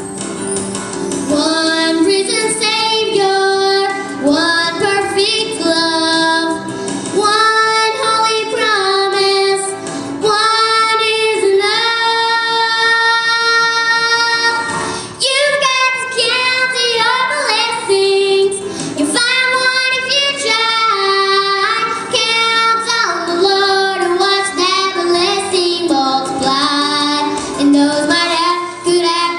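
Two young girls singing a song together into handheld microphones, with a short break for breath about halfway through.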